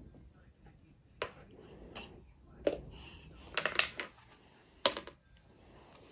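Light clicks and knocks of small wooden toy pieces from a wooden magnetic fishing game and peg sorter, a handful of separate taps with a quick run of them about three and a half seconds in.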